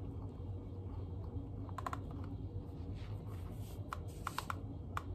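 Small sharp clicks and taps of fingers handling a model car's plastic wheel and body while the wheel is pressed onto its axle: a quick cluster about two seconds in and a few single clicks near the end, over a low steady hum.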